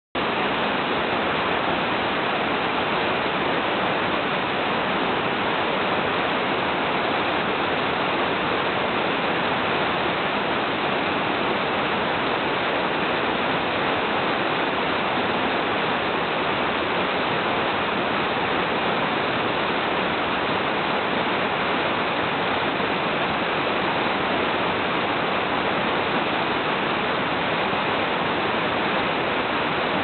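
Cascading waterfall rushing steadily as white water tumbles down a series of rock ledges into a pool, an even hiss with no breaks.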